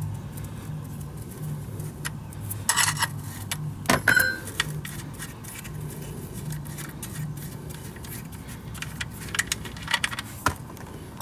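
Wrench and metal fittings clinking as the oil-pan drain plug is worked loose: a few sharp metallic clinks, one brief ringing ping about four seconds in, and more clinks near the end, over a steady low hum.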